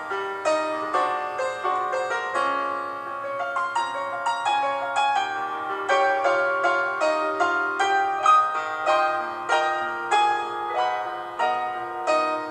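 Background piano music, notes struck at an even pace of about two a second.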